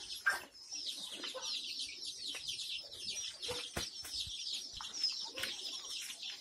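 A brood of about 150 three-week-old Kadaknath and desi chicks peeping continuously, a dense chorus of short, high, falling cheeps. A few sharp clicks are scattered through it.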